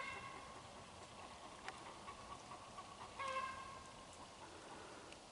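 A chicken calling faintly: a short call right at the start and a longer one about three seconds in.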